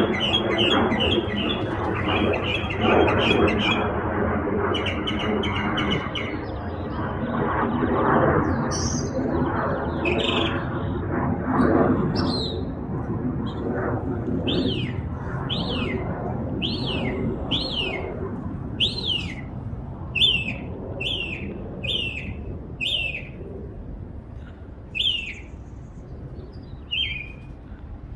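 A songbird singing a varied sequence: first a fast chattering run of repeated high notes, then a series of separate whistled notes that each slide downward, about one a second. A low rumble underlies the first half and fades away.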